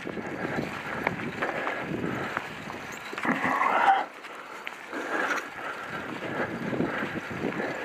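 Rustling and uneven knocks of movement along a dirt forest trail, picked up by a head-mounted camera's microphone. A louder, brief burst comes about three and a half seconds in, as a hand reaches up over the camera.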